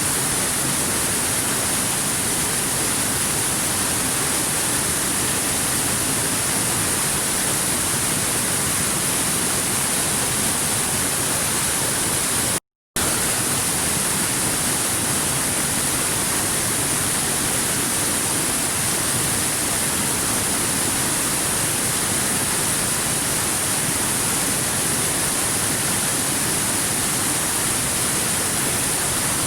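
River water rushing over rocks: a steady, even rush with a strong hiss. It cuts out completely for a split second a little before the middle.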